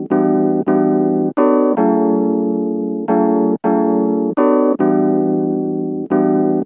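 Background music: keyboard chords struck one after another in an uneven rhythm, about nine strikes, each ringing and fading before the next.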